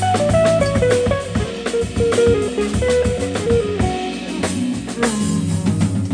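Live jazz band playing. An electric guitar picks out a melodic line over a drum kit and keyboards, with steady low bass notes underneath.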